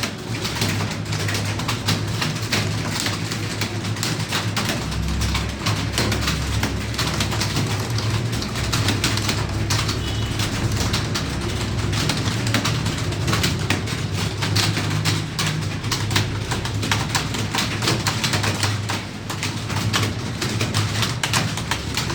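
Many computer keyboards being typed on at once: a dense, irregular clatter of keystrokes, over a steady low hum.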